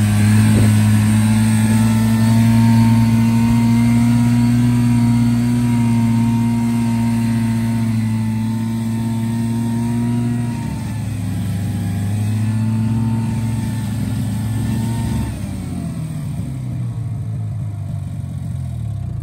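Vehicle engine running steadily under way, its note dropping about halfway through and easing off again near the end.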